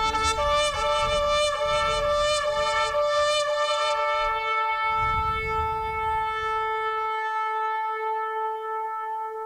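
A shofar (ram's horn) blown as a run of short wavering blasts, then one long held note. A low rumble runs underneath until about seven seconds in.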